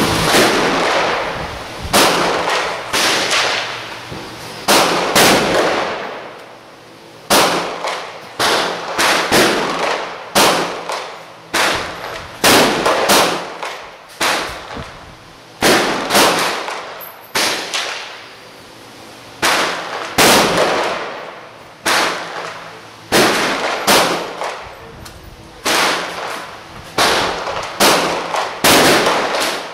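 Gunshots at a shooting range: a string of separate shots at an uneven pace, roughly one a second with some short pauses, each followed by a short echo.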